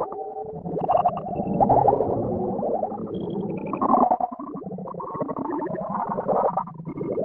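Cartoon soundtrack audio run through heavy stacked effects: several pitch-shifted, warped copies layered into one dense, smeared mash, with short high tones poking out now and then. It drops out briefly near the end, then comes back.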